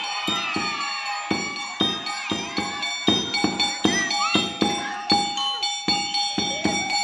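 Topeng monyet accompaniment music: a drum beaten in a quick steady rhythm, about three strokes a second, under ringing metal gong-like tones.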